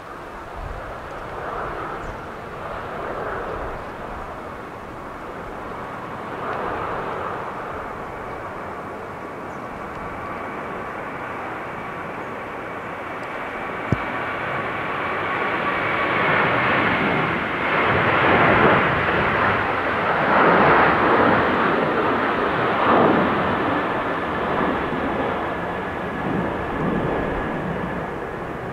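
Boeing 787-8 jet engines (Rolls-Royce Trent 1000) running with a steady whine over a rushing roar. The sound grows loudest for several seconds past the middle, and the whine drops slightly in pitch near the end as the aircraft goes past. Gusts of strong wind buffet the microphone.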